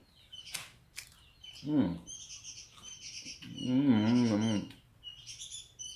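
Small birds chirping repeatedly in short, high twitters. About four seconds in, a lower voice-like call with a wavering pitch sounds for about a second, and there is a shorter falling one near two seconds.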